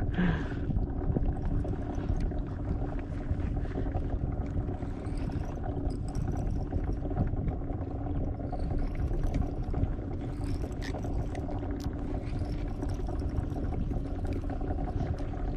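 Steady water-and-boat noise aboard a kayak: a low, even hum under a wash of water, with faint high squeaks now and then.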